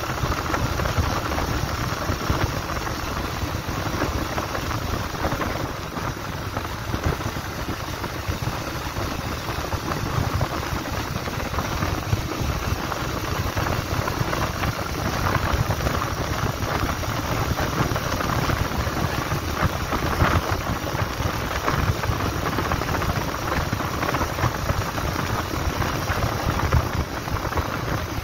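Wind rushing and buffeting over the microphone of a moving motorcycle, with the Bajaj Pulsar 150's single-cylinder engine running underneath at a steady cruise.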